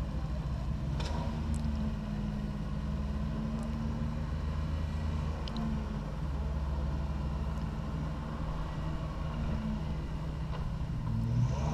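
A rock-crawling off-road vehicle's engine running at low revs, steady with small changes in throttle.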